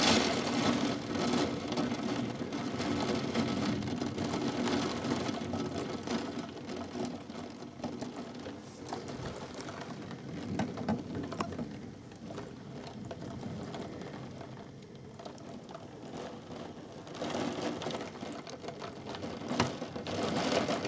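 Heavy thunderstorm rain and gusting wind, a rushing noise that swells and eases with the gusts.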